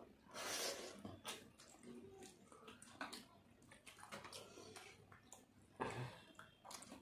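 Faint eating sounds: wet chewing and lip smacking, with fingers mixing rice and curry on plates. The sounds are louder just after the start and again near the end.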